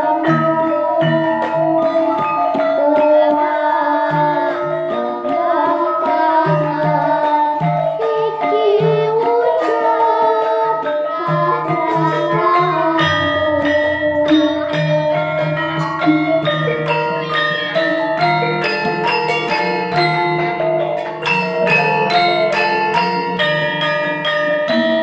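Javanese gamelan ensemble playing: kendang drum patterning under struck bronze metallophones, with a girl's singing voice over it through a microphone in the first half. About halfway through, a deep sustained low tone comes in and the struck notes grow denser.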